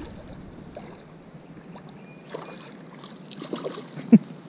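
Quiet water and handling noises around a small fishing boat, with a few short knocks and sharper sounds in the last second and a half.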